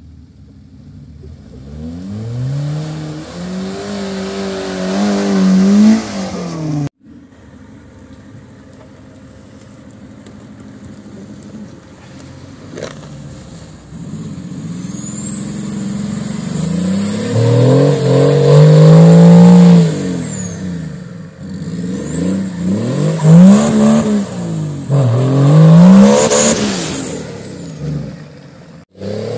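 Off-road 4x4 engines revving hard in mud, the pitch climbing and dropping again and again as the drivers work the throttle. The sound breaks off sharply about seven seconds in, then another engine builds up and revs repeatedly. A high whistle rises and falls over the revs in the second half.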